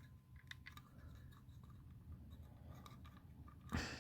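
Faint clicks and scrapes of 3D puzzle pieces being handled and pressed against each other while a piece is tried in place, with one louder scrape near the end.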